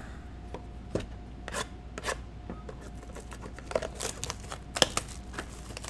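A cardboard 2020 Panini Prizm football-card blaster box being handled and torn open, with scattered sharp snaps, scrapes and crinkles of cardboard and wrapper.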